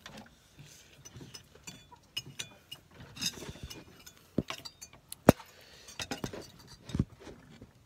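Handling noise as a phone is moved and set up on a table: scattered knocks and light clinks, the sharpest knock about five seconds in.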